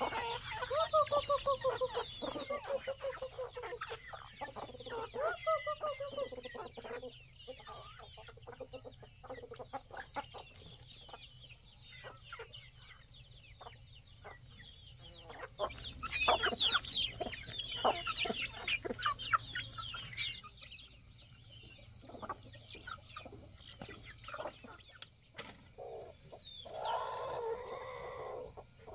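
Chickens clucking and calling in many short calls, with a longer falling call near the start and a busy run of high calls around the middle.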